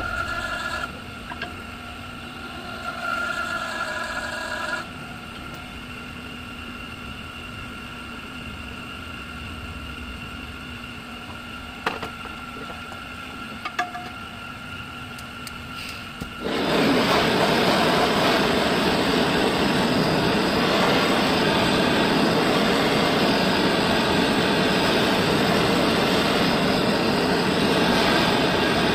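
Gas torch flame heating an alloy wheel rim to soften the metal before a dent is pushed out. It starts suddenly about halfway through and then hisses steadily and loudly. Before that there is only a low steady hum with a couple of sharp clicks.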